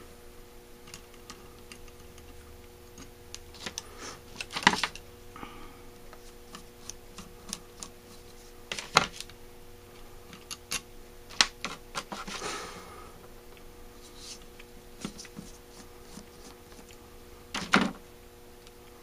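Scattered small metal clicks and taps as a screwdriver works screws out of a Holley 4000 carburetor's choke housing, with a few louder knocks about five seconds in, about nine seconds in and near the end, and a brief scrape partway through.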